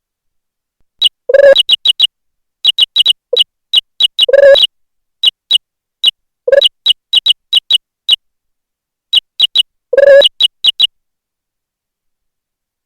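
Sound effects from the Jingle Keyboard program, played as keys are typed and the mouse is clicked: a run of short, sharp, high-pitched clicks at an uneven typing pace, with four longer, lower sounds mixed in, and dead silence in between.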